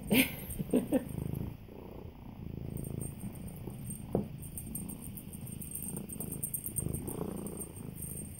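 A cat purring steadily, with a few short, sharp sounds over it near the start and once about four seconds in.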